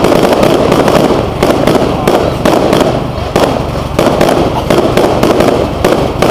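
Aerial firework shells bursting overhead in a rapid, continuous barrage of loud bangs, several every second.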